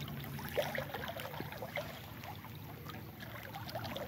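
Rain falling on creek water: many small, irregular drop sounds over a soft steady wash.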